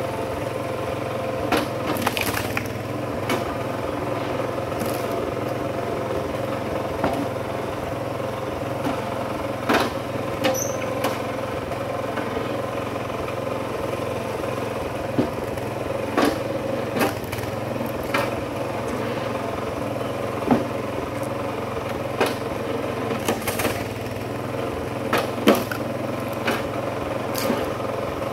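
Kinetic HD Super Splitter log splitter with its engine running steadily, splitting large hardwood rounds. Sharp cracks and knocks of wood splitting apart and split pieces landing on the table come every couple of seconds over the hum.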